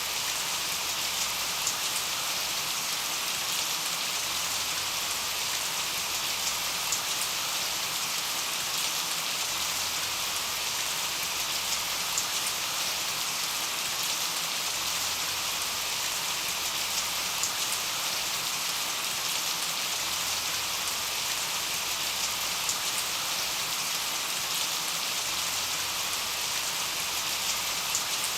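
Steady rain falling on a surface: a constant hiss with many small drop patters and no change in intensity.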